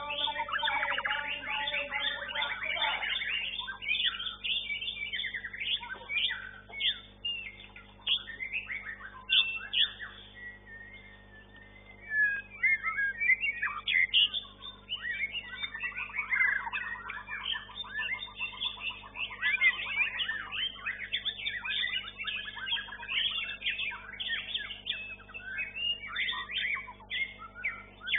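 White-rumped shamas (murai batu) singing in competition: a fast, varied run of whistles, chirps and trills. It thins out briefly about ten seconds in, then picks up again with a rapid, even trill a few seconds later.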